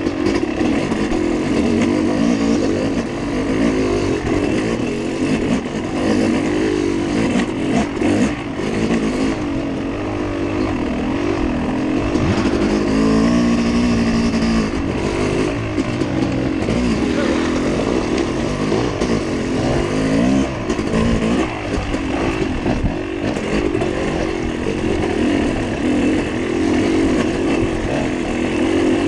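Dirt bike engine running hard under load, heard close from the rider's own bike, its revs rising and falling as the throttle is worked.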